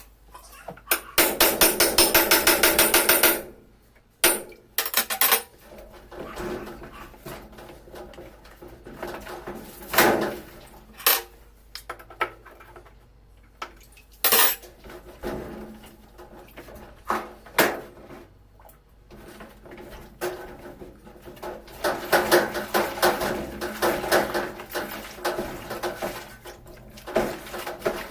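Tools and hard plastic and metal parts of a washing machine knocking and clattering as it is taken apart. About a second in comes a loud, rapid, even rattle lasting about two seconds, and another stretch of busy rattling comes near the end.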